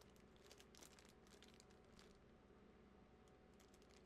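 Near silence, with faint crinkling of plastic packaging in the first two seconds.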